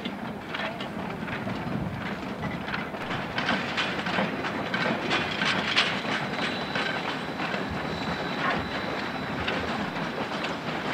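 Narrow-gauge railroad cars rolling along the track while the train backs up, their wheels clicking and clattering over the rail joints. A faint, thin, high squeal from the wheels runs through the second half.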